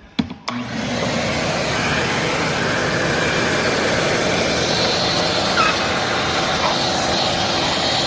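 Craftsman 4-gallon, 5-peak-HP wet/dry shop vac switched on: a couple of clicks, then the motor spins up within about half a second and runs with a loud, steady rushing noise.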